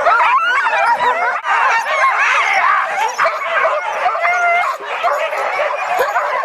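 A pack of Kamchatka sled dogs calling all at once, many short rising-and-falling yelps and whines overlapping without a pause.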